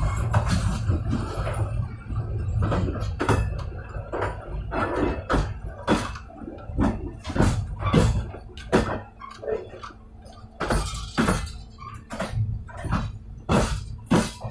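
Train wheels running on the rail, heard from beside the bogie: a low rumble, loudest in the first two seconds, with a run of irregular sharp clicks and knocks from the running gear.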